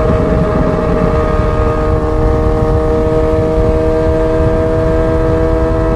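Ferrari 430 Scuderia's flat-plane V8 through a straight-pipe exhaust, running loud at a steady engine speed while driving, a constant drone over a low rushing noise.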